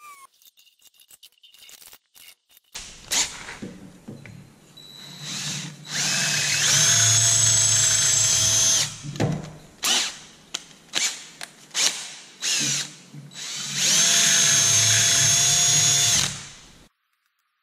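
DeWalt cordless drill boring a hole: two long runs at full speed, each with a whine that rises as it spins up and then holds steady, with a series of short trigger blips between them.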